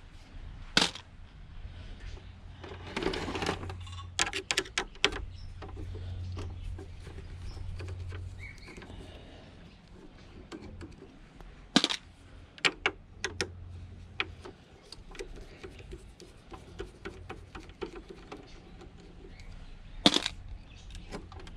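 Screws being turned out by hand with a screwdriver from a Singer sewing machine's plastic casing: scattered small clicks and metallic taps, in short clusters. The sharpest click comes near the end as a screw is dropped into a plastic tub of screws.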